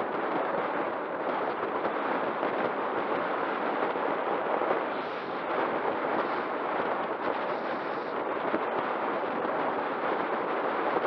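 Wind rushing over the microphone of a bicycle-mounted camera on a fast downhill road descent: a steady, rough rush of noise.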